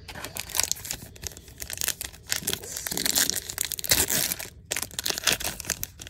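Foil wrapper of a 2022 Topps Series 1 baseball card pack being torn open and crinkled by hand: a dense crackle of rustling and sharp crinkles, with a brief pause about four and a half seconds in.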